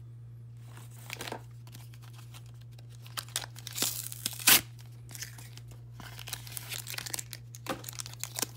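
Plastic blister packaging and foil Pokémon booster-pack wrappers crinkling and tearing as a blister pack is opened by hand, with one loud sharp snap about halfway through and denser crinkling near the end.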